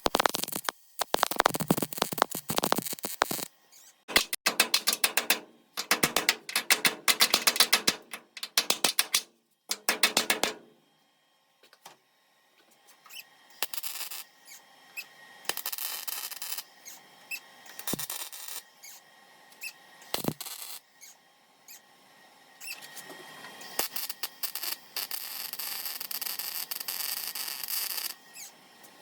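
MIG welder crackling in several stitch-weld bursts of one to three seconds each, on a sheet-metal rust-repair patch. It is followed by fainter, irregular crackle and hiss.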